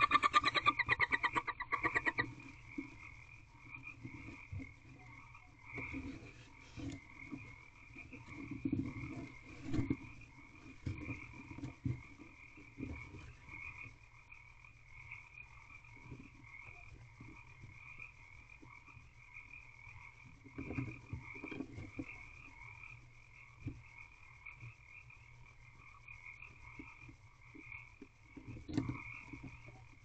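A steady chorus of frogs calling with a fast, pulsing croak that is louder for the first two seconds and then carries on more quietly. Soft scuffs and rustles come and go over it as a barn owl shifts about on wood shavings in its nest box.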